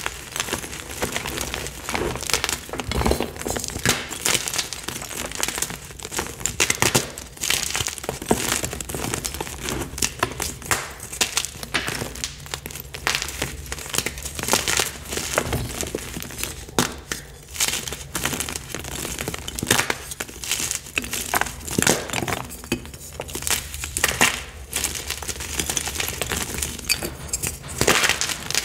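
Blocks of Picsil magnesium carbonate gym chalk being squeezed and crumbled by hand over a bed of broken chalk: a dense, irregular run of crunches and sharp snaps, with powdery crumbling between them.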